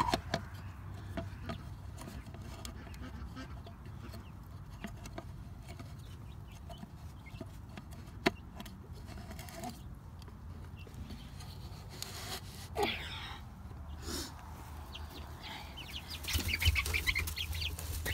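Chickens clucking softly, with scattered light knocks and rustling from handling a red plastic feeder, one sharp knock about eight seconds in, and busier handling noise near the end.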